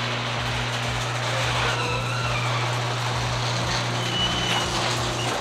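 Electric garage door opener running as the door rolls up, a steady motor hum with a rattling drive that cuts off near the end.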